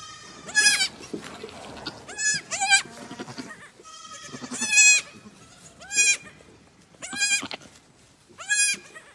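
Newborn goat kids bleating: about seven short, high-pitched calls at irregular intervals, each rising and then falling in pitch.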